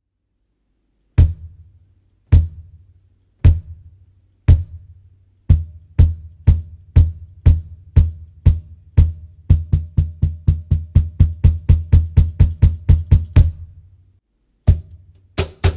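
Bass strokes of a Meinl Direct Drive cajon pedal, its foam-covered beater striking the front plate of a Meinl Artisan Buleria cajon. The deep hits start about once a second, then speed up to about two and then about four a second, stop briefly, and start again with a few more hits near the end.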